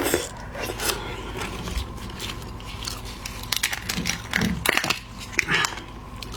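Shell of a large red devil shrimp crackling and crunching as it is broken open and eaten, in irregular sharp clicks that bunch up in the second half.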